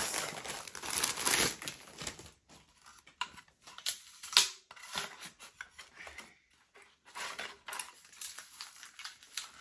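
Stiff plastic hanger covers and hangers handled and pulled apart, making crinkling rustles and scattered clicks. The rustle is densest in the first second or so, and there is one sharp click about four seconds in.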